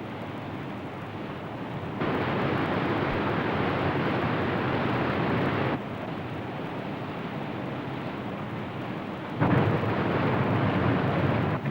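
Steady roar of a waterfall and its whitewater. It jumps louder about two seconds in, drops back near six seconds and jumps louder again near nine and a half seconds.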